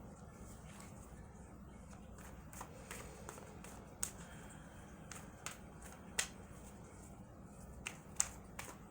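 Tarot cards being shuffled and handled: scattered, irregular sharp snaps and clicks of the cards over a faint, steady low hum.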